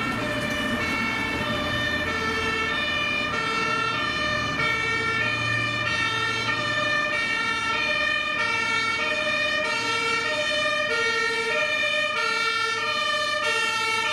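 German fire engine's two-tone siren (Martinshorn) sounding on an emergency run, its high and low notes alternating steadily, each held for under a second. A low rumble of road traffic runs beneath it and fades about halfway through.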